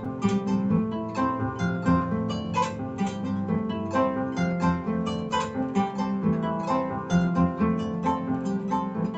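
Solo kora, the West African harp-lute, played as a continuous stream of plucked notes: a repeating low bass figure runs under a quicker melody.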